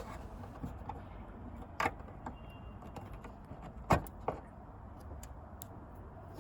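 A few sharp metallic clicks over a quiet background, one about two seconds in and the loudest about four seconds in, as a screwdriver lifts the metal retainer clip on a hood strut's end fitting and the strut is unhooked from its ball stud.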